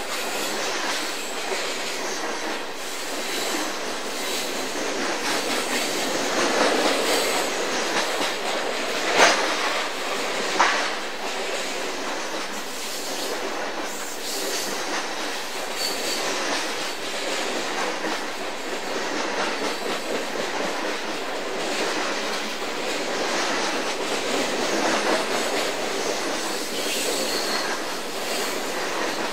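Loaded coal train cars rolling past: a steady clatter of steel wheels on the rails, with two sharp clanks about nine and ten and a half seconds in. A few faint, brief wheel squeals come near the middle and near the end.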